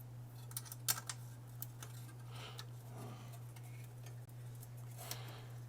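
Light clicks and taps of small console parts being handled during reassembly, bunched together about a second in with a few more after, over a steady low hum.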